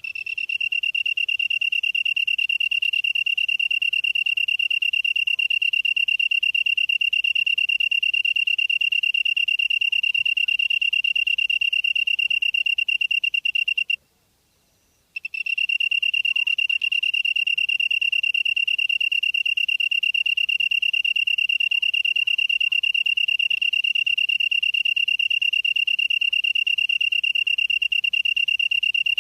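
A cricket singing one steady, high-pitched trill that stops for about a second midway and then starts up again.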